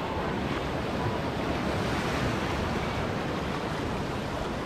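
Ocean surf breaking and washing in the shallows, a steady rushing noise.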